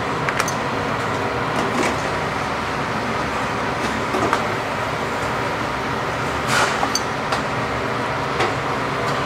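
Steady rushing noise of kitchen fans with a low hum running under it. A few light clicks and knocks of pots and utensils come through it, the clearest about two-thirds of the way in.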